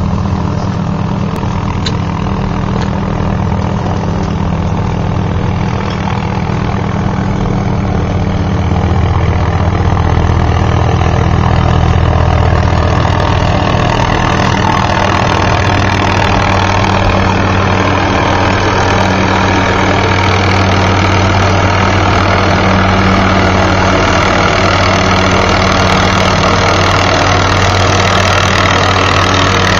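MD 530FF helicopter flying in with a load slung on a long line: steady rotor and turbine noise that grows louder about a third of the way in and then stays loud.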